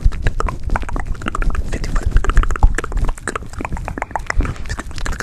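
Fast, irregular close-up clicks and taps right at the microphone: ASMR plucking sounds for picking off bed bugs.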